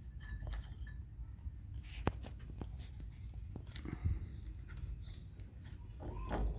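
Small parts being handled and slid off the steering column: a few sharp light clicks, the clearest about two seconds and four seconds in, with faint scraping in between.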